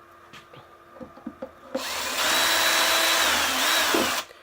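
Power drill with a small bit spinning in a threaded bolt hole, clearing out cured Gorilla Glue foam, after a few light handling clicks. It runs with a steady whine for about two and a half seconds starting near the middle, its pitch sagging just before it stops.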